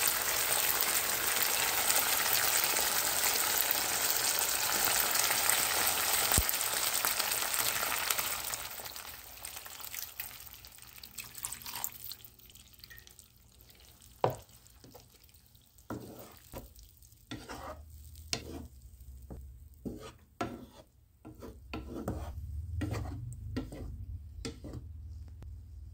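Sardines and tomatoes in sauce sizzling steadily in a frying pan. About eight seconds in the sizzle dies down, and a run of short, irregular scrapes and taps of stirring in the pan follows.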